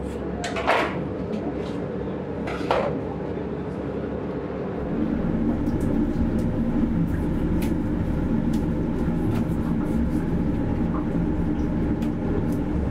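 A steady mechanical hum that grows louder about five seconds in, with two sharp knocks in the first three seconds and many light clicks throughout.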